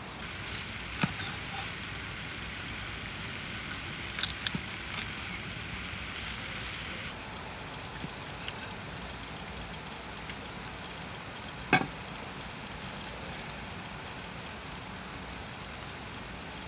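Cow heart and potato slices sizzling on a flat hot stone over a wood fire, a steady hiss. A few sharp knocks break through it, the loudest about two-thirds of the way in.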